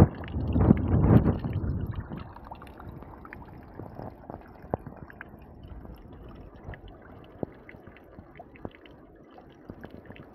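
Shallow stream water splashing loudly for about two seconds as a small fish thrashes, then a quieter low wash of flowing water with scattered drips and small ticks.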